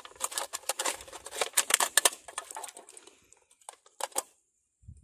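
Aluminium drink can being pried and cut open with a small blade: rapid scraping, clicking and crinkling of the thin metal, thinning to a few clicks and stopping abruptly about three and a half seconds in.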